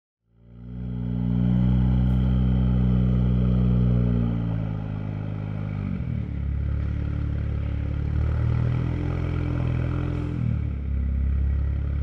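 Modified BMW Z4's engine and exhaust idling with a steady low drone. A few seconds in, the pitch steps down as the idle settles lower, and it shifts again near the end.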